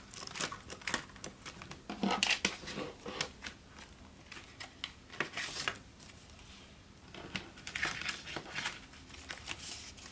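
Paper envelopes and banknotes rustling and crinkling as they are handled, with small ticks and taps. The louder bursts come about two seconds in, around five seconds and around eight seconds.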